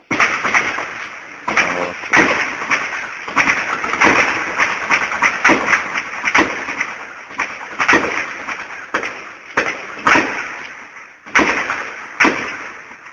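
Heavy gunfire: a dense run of rapid shots and short bursts, each trailed by an echo, starting abruptly and keeping up throughout.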